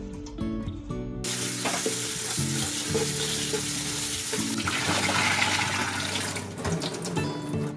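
Kitchen tap running into a stainless steel pot of leafy greens as they are rinsed by hand, water splashing; it starts about a second in and stops about a second before the end.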